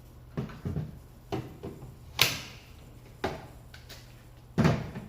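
Hard plastic items being handled and set down on a surface: about six separate knocks and scrapes, the loudest about two seconds in.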